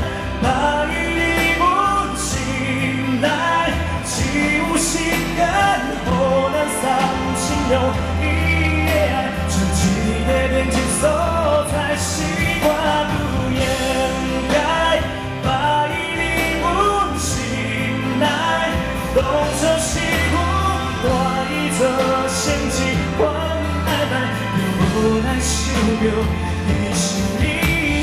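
Live band performance of a pop song: a singer over a band, with drums and a steady bass line.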